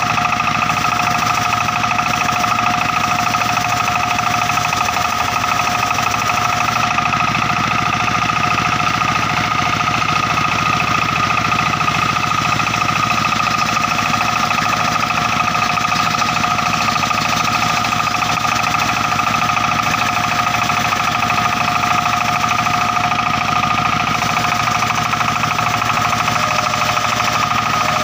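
Sawmill circular saw (serkel) running through a teak log with a steady, high whine that holds one pitch throughout.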